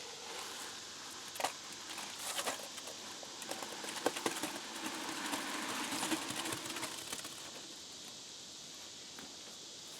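Irregular scrapes and knocks of wet concrete being scooped with a cut-down plastic bucket and dumped into concrete block cores, busiest in the first seven seconds, then quieter.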